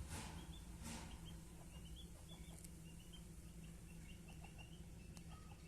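Small birds chirping faintly in the background, a continual run of short high chirps, over a low steady hum; two soft brushing noises about a second apart at the start.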